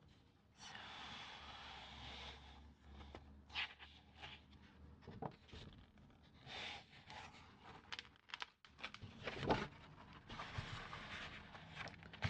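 Fingers and nails brushing, tracing and scratching over the paper of an old calendar page: soft hissing strokes with scattered scratchy ticks between them, and a louder thump about nine and a half seconds in.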